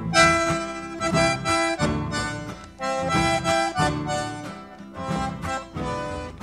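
Background music: a reedy melody of held notes over plucked guitar, with a steady beat.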